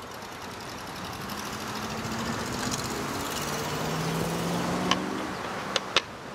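A motor vehicle passing by: its engine and tyre noise swells to a peak after about four seconds and then fades. A few sharp clicks, from metal serving tongs against a salad bowl, come near the end.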